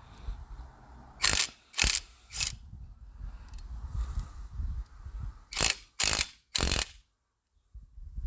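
Socket ratchet wrench clicking in short bursts while bolts are spun out of an engine, in two groups of three, about a second and about five and a half seconds in.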